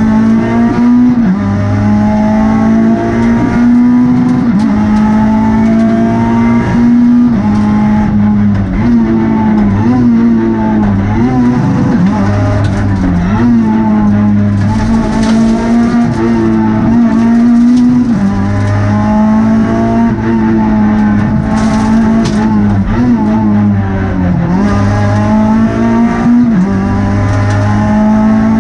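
Renault Twingo R2 rally car's 1.6-litre four-cylinder engine heard from inside the cabin, driven hard: the engine note keeps climbing under full throttle and dropping at each gear change or lift.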